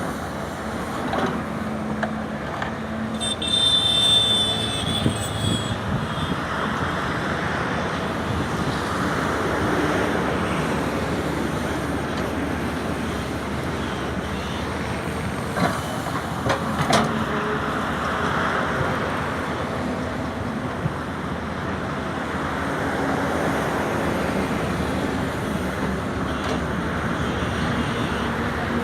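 Sany SY210 excavator's diesel engine running and swelling and easing in slow cycles as it works. A brief high squeal comes about three to six seconds in, and a few sharp knocks come around the middle.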